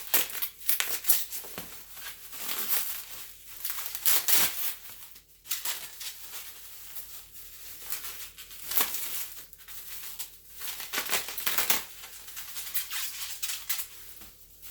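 Packaging being unwrapped by hand: irregular crinkling and rustling of wrapping material, with occasional tearing.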